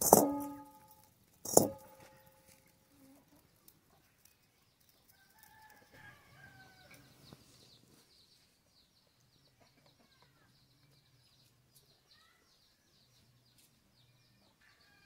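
A metal wok knocks against the clay stove twice in the first two seconds, each knock ringing briefly. Hens then cluck faintly a few seconds in.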